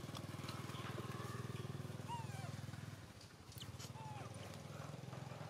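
A small engine running with a steady low throb that drops away briefly about three seconds in. A few short, gliding chirps sound over it.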